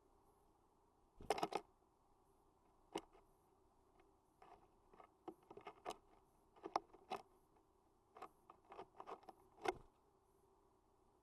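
Tits tapping, pecking and scrabbling on a bird feeder: irregular sharp clicks and taps. There is a quick cluster about a second in, scattered taps through the middle and a sharp one near the end.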